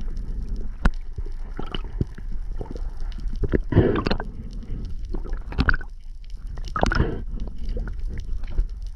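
Sea water sloshing and gurgling around the camera, over a steady low rumble, with a few louder surges and a sharp click about a second in.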